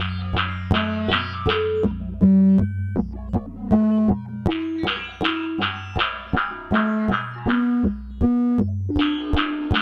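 Eurorack and Serge modular synthesizer patch playing a sequenced melody: a quick run of short, plucked-sounding notes that each fade fast, over a lower bass line.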